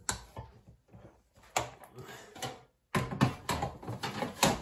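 Clinks and knocks as a cake tin is set down into an air fryer basket and the basket is pushed back into the air fryer: a run of sharp clicks and thuds, sparse at first and coming closer together in the last second and a half.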